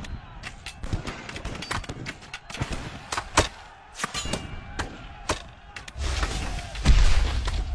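Cannon fire, and projectiles striking stone: a quick, uneven scatter of sharp cracks and knocks. About six seconds in, a heavy low rumble sets in, with a big thud about a second later.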